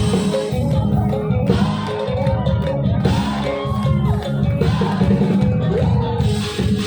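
Live band playing a luk thung song over a loud sound system, with a heavy pulsing bass and a gliding melody line over it.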